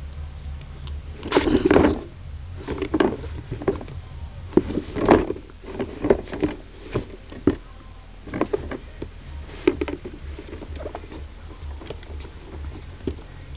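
Ferret sneezing again and again in short, sharp bursts at irregular intervals, set off by dust in a storage case, over a low steady hum.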